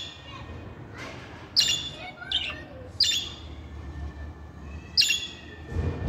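Budgerigars chirping: short, sharp, harsh calls about once a second, with softer chatter between them.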